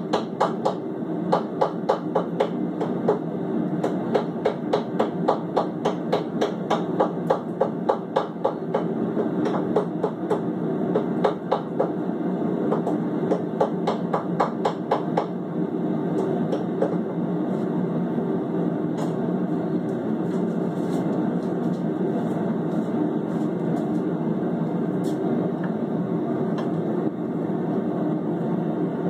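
Gas forge running with a steady roar. Over it come rapid sharp clicks, about four a second, through the first half, which thin out and stop near the end.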